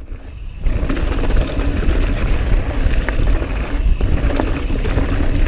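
Mountain bike rolling fast down a loose, dusty dirt trail: steady tyre and rolling noise with scattered clicks and knocks from the bike over small rocks, and wind rumble on the microphone. The noise picks up after about half a second.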